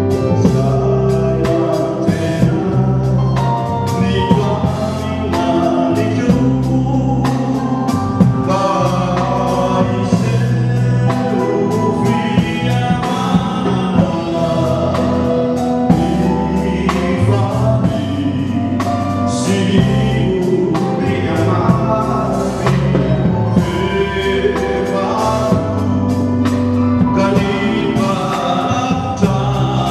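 Mixed choir of adults and children singing a Christmas carol, the voices moving over held low accompanying notes and a steady beat.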